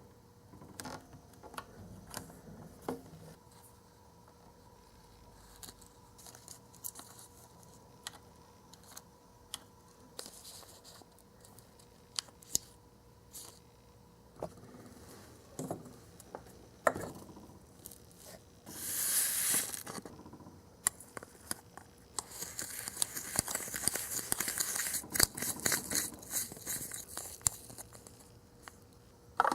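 Close-up handling of a candy-kit's plastic packets and small tools: scattered light clicks and taps, then crinkling and tearing of packaging, loudest near the end.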